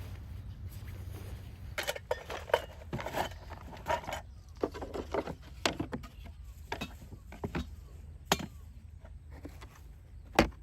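Irregular knocks and clinks of small hard objects being handled, starting about two seconds in, over a low steady hum.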